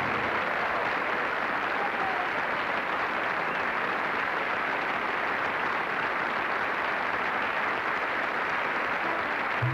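Theatre audience applauding steadily at the end of a song.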